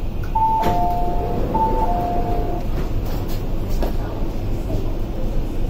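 Two-note chime, a higher tone followed by a lower one, sounding twice as the doors of an MTR IKK (SP1900) train open at a station. It plays over the steady rumble inside the stopped train.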